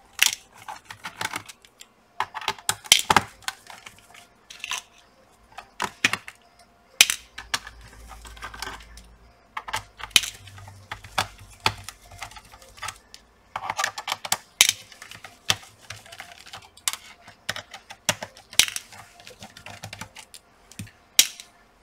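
Irregular small clicks and taps of a screwdriver turning out the screws of a laptop's plastic bottom cover, with loose screws dropped into a plastic parts box.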